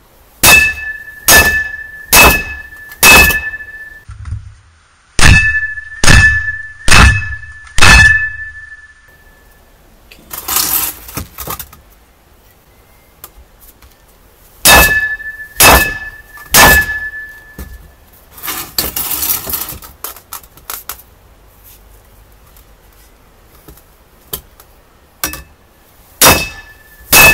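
A baseball bat striking a 10-inch nylon surf fin set in a clear polycarbonate fin box: hard whacks in runs of three or four, about one a second, each with a short ringing tone, with pauses of several seconds between the runs.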